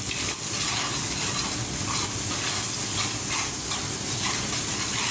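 Garlic and dried anchovies (ikan bilis) sizzling in hot oil in a pan with a steady hiss, stirred with irregular scraping strokes of a spatula.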